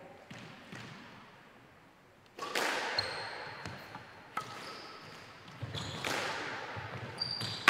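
Squash rally: the ball is struck by rackets and knocks off the court walls and floor, sharp hollow knocks that echo in the enclosed court, coming every half second to a second from about two seconds in.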